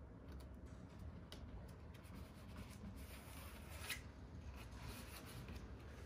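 Faint rustling and scraping of insect-screen mesh being handled and pressed along a window frame by hand, with scattered light clicks and a louder scratchy rustle about four seconds in.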